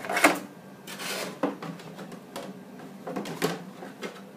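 Handling noise: a few knocks and rubbing as a plastic RC truck is shifted and propped up on a desktop, the loudest knock just after the start.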